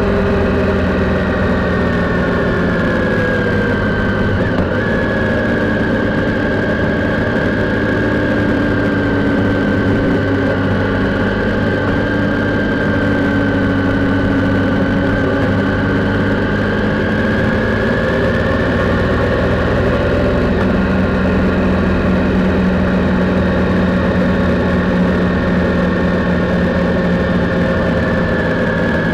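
Triumph Sprint's three-cylinder engine running steadily at cruising speed, its pitch easing slightly down and then back up past the middle, over a steady rush of wind and road noise.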